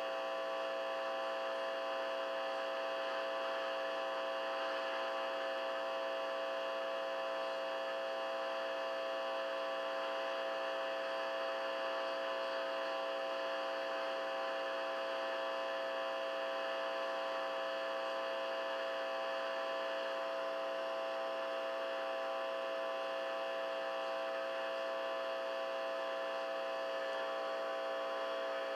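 Steady electrical hum and buzz, many fixed tones stacked together with a hiss above, from a homemade transistor-and-electromagnet pickup circuit played through a Fender Rogue guitar amp.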